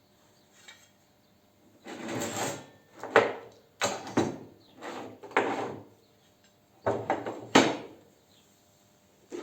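Leftover bits of material being rummaged through and moved about: a run of scrapes and sharp clunks, loudest about three seconds in and again near the end.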